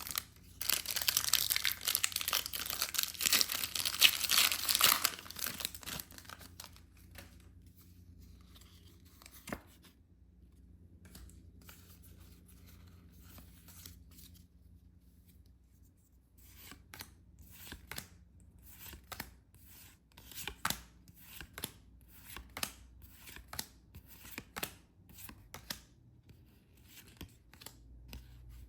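Pokémon card packaging torn open in one long loud rip lasting several seconds, then quieter rustling and a run of light clicks and flicks as the cards are handled.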